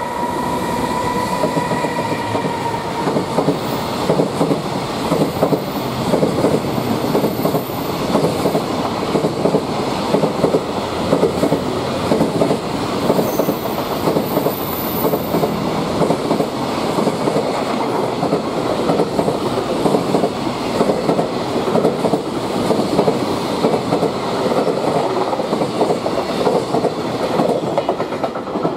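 A freight train hauled by an EF210 electric locomotive passes close by, its container wagons' wheels clattering continuously over the rails. A high, steady whine is heard for the first few seconds as the locomotive goes by.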